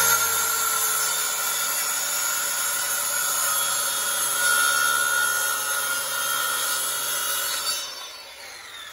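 Corded Ryobi circular saw running at speed as it cuts through a wooden board, a steady whine with the blade biting the wood. Near the end the trigger is let go and the saw winds down.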